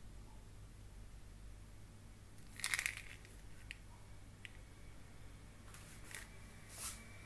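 Faint handling noise of a plastic tablet bottle turned in the hand: a brief crinkly rustle with clicks about two and a half seconds in, a couple of small single clicks, and two short rustles near the end, over a low steady hum.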